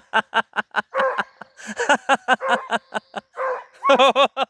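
A person laughing in quick, yelping bursts of about five a second, a laugh done in imitation of a beagle. It breaks off briefly about three seconds in, then starts again.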